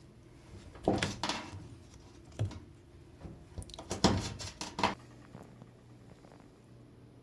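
Handling sounds of work on a washing machine's door: a few short runs of clicks and knocks, about a second in, once more at about two and a half seconds, and a busier run around four to five seconds.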